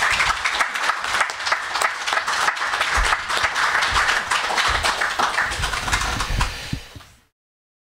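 Audience applauding, a dense patter of many hands clapping that fades out about seven seconds in.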